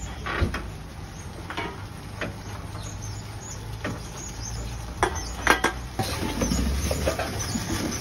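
Plastic drink bottles knocking and clattering as they are fed one at a time into a TOMRA reverse vending machine's intake, a handful of sharp knocks with the loudest pair about five and a half seconds in, over a low steady hum.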